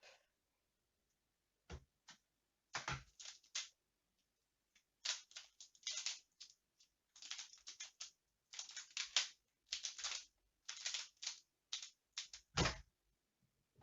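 Pyraminx puzzle being turned fast by hand: irregular bursts of plastic clicking and rattling with short pauses between turns, and a dull thud near the end.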